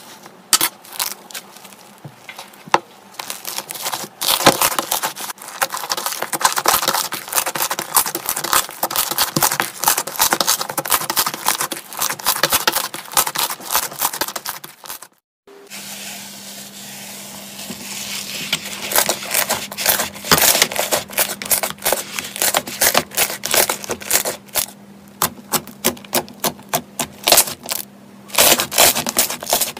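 Slime being stirred with a spoon and then pressed and squished by hand: dense, rapid crackling and popping clicks. There is a short break about halfway through, and a faint steady hum sits under the second half.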